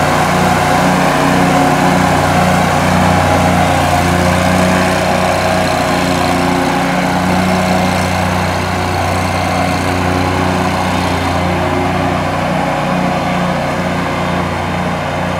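Wright Stander ZK stand-on commercial mower's engine running steadily with the cutting blades engaged as the mower drives itself without a rider, growing a little fainter near the end as it moves off.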